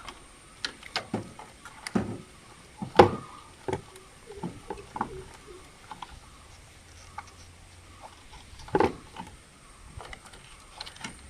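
Scattered clicks and knocks of parts being handled and fitted on a motorcycle, loudest about three seconds in and again near nine seconds.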